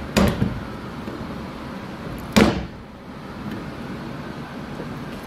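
Clinical-waste wheelie bin's key lock and lid: a couple of small metal clicks from the key in the lock, then one loud knock about two and a half seconds in as the lid is worked down. The bent lock is not catching, so the lid does not lock.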